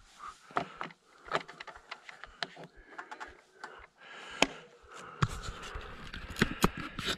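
YT Decoy 29 mountain bike rolling over a dirt and gravel track, rattling with many irregular clicks and knocks from the rough ground, with more low rumble in the last couple of seconds.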